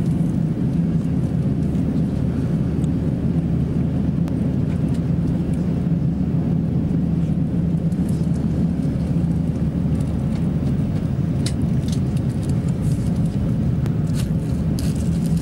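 Steady cabin noise of an Airbus A350-900 taxiing: a low rumble from its Rolls-Royce Trent XWB engines at taxi power and the rolling undercarriage, with a constant low hum. A few faint ticks come in the second half.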